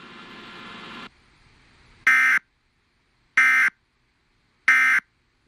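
Three short, harsh data bursts, evenly spaced about a second and a quarter apart: the SAME end-of-message code that closes an emergency alert broadcast. A faint steady hiss cuts off about a second in.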